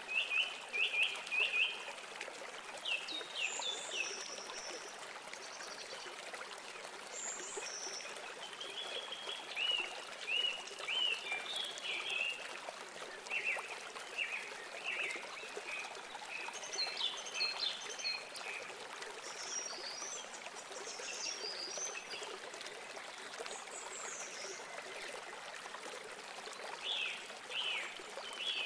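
Steady trickle of running water, with birds chirping in quick runs of short high notes on and off.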